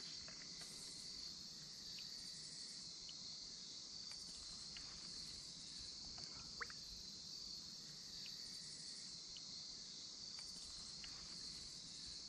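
Insect chorus: a steady high-pitched buzz with a fainter pulsing layer above it, with a few faint clicks, the clearest just past the middle.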